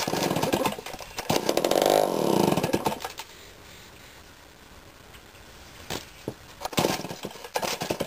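Homelite Zip chainsaw being pull-started: it fires and runs briefly, its pitch falling as it dies out about three seconds in. A second pull near the end doesn't catch. It is short of fuel prime in the carburetor, so it fires and dies.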